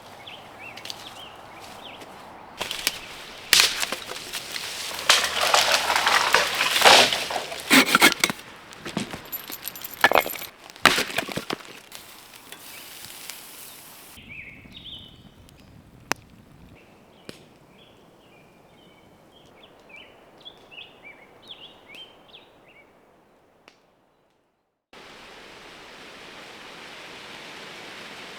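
A run of short outdoor sounds: loud, irregular cracks and snaps for the first several seconds, then small birds chirping in short calls. After a sudden second of silence, an even hiss sets in near the end, like steady rain.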